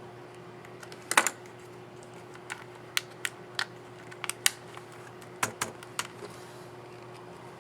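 HP Pavilion x360 13 laptop keyboard keys clicking as they are pressed: about a dozen sharp clicks at irregular intervals, the loudest a quick group of three about a second in.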